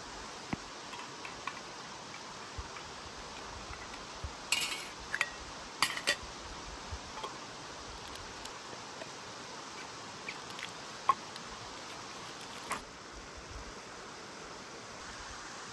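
Clinks and taps of metal camp cookware: a spoon knocking in a metal mug and a lid being fitted, over a steady rush of flowing water. The loudest clatter comes about five seconds in, with scattered single clicks after it.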